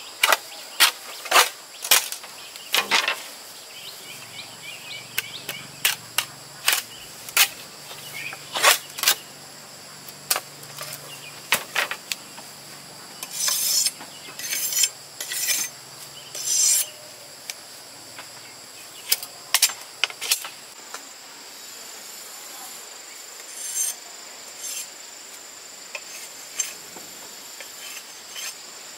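Machete knocking against and scraping along a bamboo pole as it is trimmed: many sharp, irregular knocks, a run of longer scraping strokes about halfway through, then a few scattered knocks. Steady high insect buzzing runs underneath.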